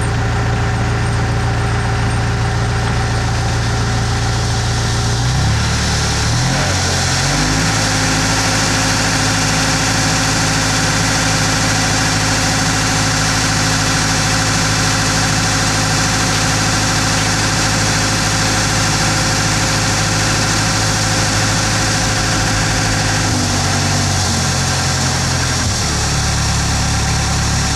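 Planing machine running with a steady mechanical hum. Its low tones shift in steps a few seconds in and again near the end before settling.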